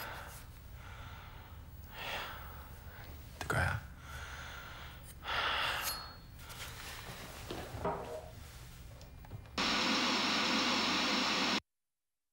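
A man sighing and breathing audibly, a handful of breaths several seconds apart, over faint room tone. Near the end a loud steady hiss comes in for about two seconds and then cuts off abruptly to dead silence.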